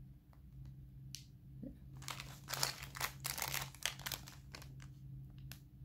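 Clear plastic jewellery bag crinkling as it is handled: a dense run of crinkling about two seconds in, lasting a couple of seconds, with lighter scattered crinkles and ticks around it.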